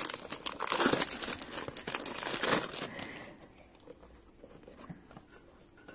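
Cellophane wrapper on a perfume box crinkling and tearing as it is peeled off by hand. Dense and loud for about three seconds, then only faint rustles.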